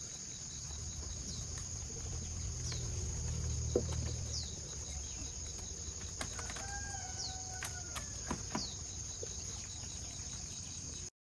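Rural ambience: a steady high insect buzz with short falling bird chirps. A rooster crows once, a held call about six seconds in, over a faint low rumble early on.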